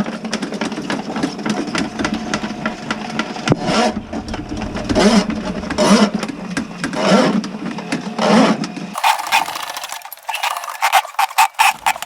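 A small motor running steadily, swelling about once a second; about nine seconds in it becomes a thinner, rapid rattle.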